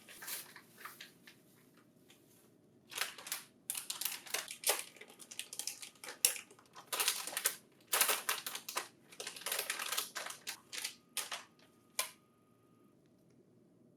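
Crinkling and rustling of the printer hard disk's packaging being handled, in irregular crackly bursts from about three seconds in until about twelve seconds in.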